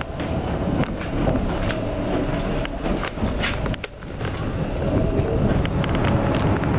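CTA 5000-series rapid-transit car running on the elevated tracks, heard from inside: a steady rumble of steel wheels on the rails, with scattered clicks and knocks from the rail joints and car body.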